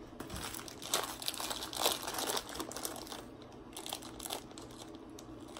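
Plastic bag of Hershey's Kisses crinkling in several bursts as it is handled and cut open with scissors.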